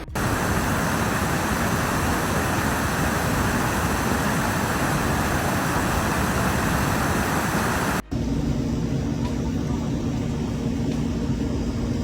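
A loud, steady rush of water that cuts off sharply about eight seconds in. After the cut, a quieter rush continues with a steady low motor hum underneath.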